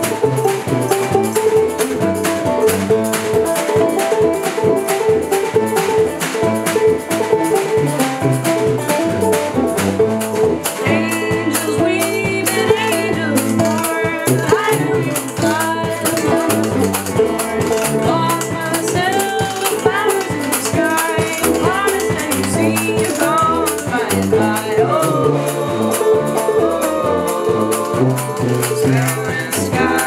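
A small acoustic band playing: acoustic guitar and banjo, a tuba bass line, and a washboard and snare drum keeping a steady scratchy rhythm. A woman's singing comes in about eleven seconds in.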